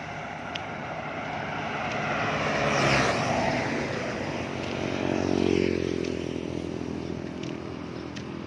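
Road traffic passing close by: one vehicle rushes past about three seconds in, then a motor vehicle's engine swells and drops in pitch as it goes by around five to six seconds in.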